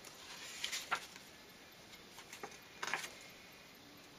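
Paper cards being handled and laid down on a cloth-covered table: a few brief soft rustles, about a second in and again about three seconds in.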